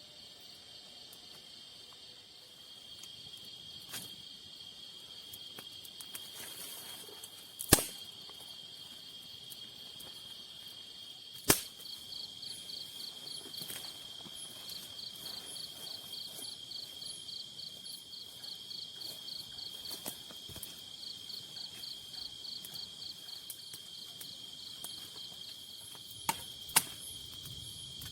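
Night insects, crickets, keep up a steady high trill, and from about twelve seconds in a faster pulsing chirp joins them at several chirps a second. A few sharp cracks cut through, two loud single snaps in the first half and two close together near the end.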